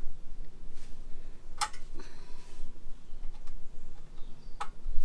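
An Allen key working a radiator guard mounting bolt: a few sharp metallic ticks, the loudest about a second and a half in, with a brief scrape just after it, during the final tightening of the bolt.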